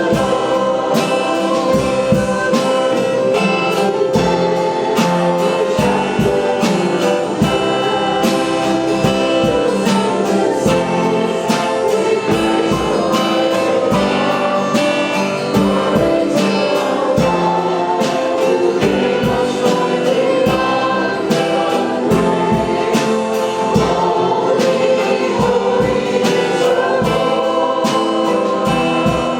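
Gospel-style worship music: voices singing together over a band with a steady beat.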